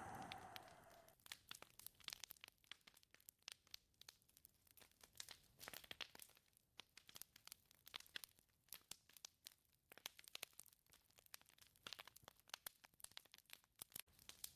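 A wind gust dying away in the first second, then faint, scattered crackling: many small irregular clicks over a near-silent background.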